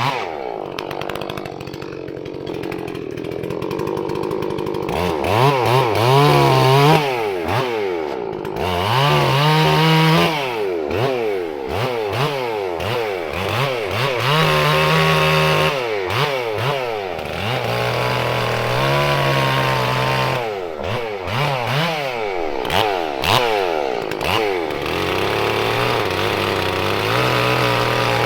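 Holzfforma G466 two-stroke chainsaw, a Stihl 046 clone, running on its first tank while cutting firewood: revving up and dropping back again and again as it goes in and out of cuts, with spells held at high speed. The carb is still set a little rich for break-in.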